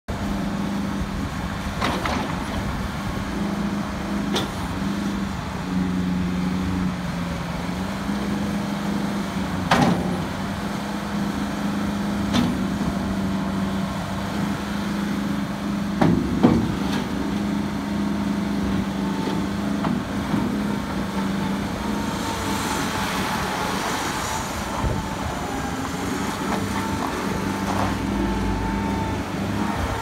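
New Holland LX665 Turbo skid steer loader's turbo diesel engine running steadily, with a few sharp knocks from the loader arms and bucket being worked. A thin whine joins in over the last several seconds.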